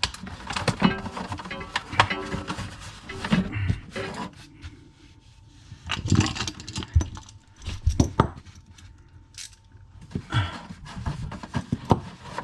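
Irregular clicks, knocks and handling noises of hand work with tools and parts, quieter in the middle stretch.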